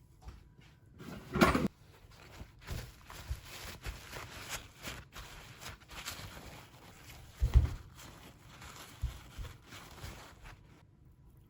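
Kitchen handling noises from cookware and utensils: scattered light clicks and knocks, with two louder thumps, one about a second and a half in and one about seven and a half seconds in.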